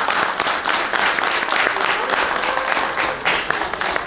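Congregation applauding: many hands clapping at once, a dense steady patter.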